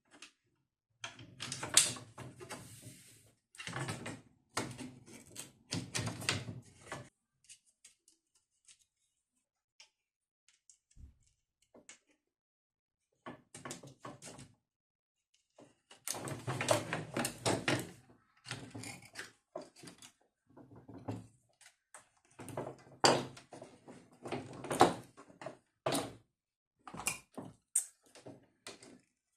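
Bursts of irregular knocking and clattering, with quiet gaps of a few seconds between them.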